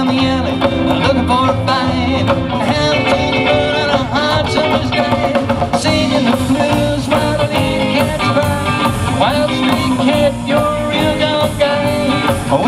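Live rockabilly band playing: electric guitar, upright double bass and drum kit, with a singer's voice over it.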